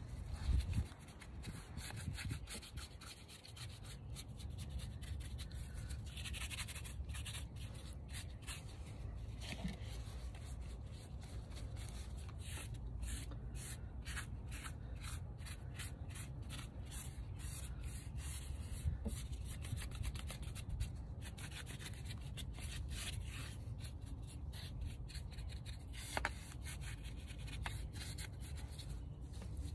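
Stiff paintbrush scrubbing white paint onto rough cast concrete, a run of rapid, irregular scratchy brush strokes, over a steady low rumble.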